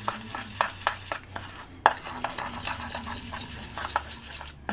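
Metal spoon stirring a thick oil-and-seasoning paste in a small stainless steel bowl, with irregular clinks of the spoon against the bowl, several a second. The sharpest clink comes about two seconds in.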